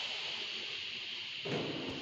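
Steady hiss of background noise, with one short, dull thump about one and a half seconds in.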